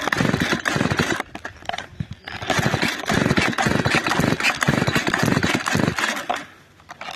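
Chainsaw running, in two long bursts with a dip about a second in, falling away about six seconds in.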